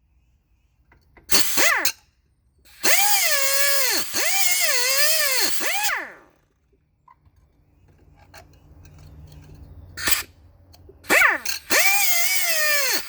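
Hand-held power grinder run in several bursts on a motorcycle frame mount, its whine sagging in pitch and recovering as it is pressed into the metal and eased off. The longest burst lasts about three seconds, and another starts near the end.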